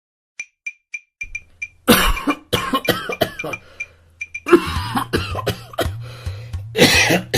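A person coughing repeatedly, in harsh fits that start about two seconds in and are loudest near the start, the middle and the end, over background music with a low sustained bass note. A run of short, sharp clicks comes before the first cough.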